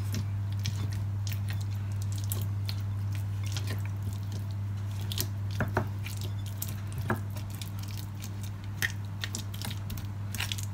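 Fork mashing and stirring softened butter with herbs in a ceramic bowl: soft squishing with irregular small clicks and scrapes of the fork against the bowl, over a steady low hum.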